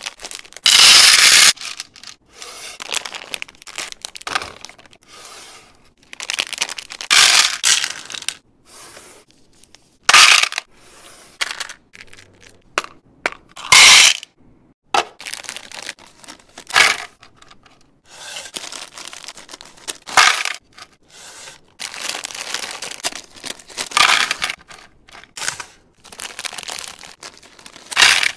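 Plastic candy bags and packets crinkling and tearing open, with jellybeans and gummy candies pouring into a plastic divided tray, in a string of short loud bursts that stop and start every second or two.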